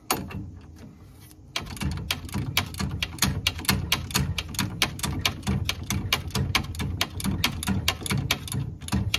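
Ratchet and socket clicking in a quick, steady run of about five clicks a second, starting about a second and a half in, as a ball-joint nut is turned off the spindle.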